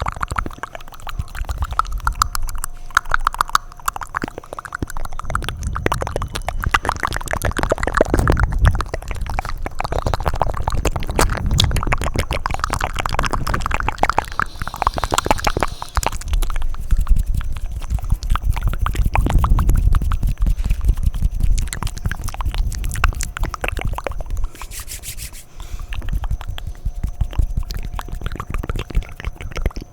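Intense wet mouth sounds close to the microphone: a fast, continuous run of tongue clicks and lip smacks, with a low rumble underneath.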